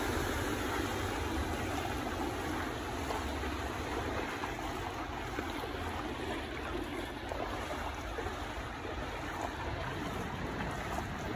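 Heavy rain and floodwater on a flooded street: a steady rushing water noise.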